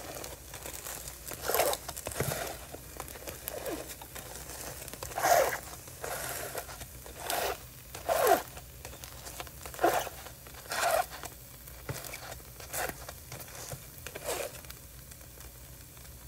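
A spinach wrap being pressed down flat in a hot pan, giving a short crinkling squish with each press. The presses come at irregular intervals of about a second and stop a little before the end.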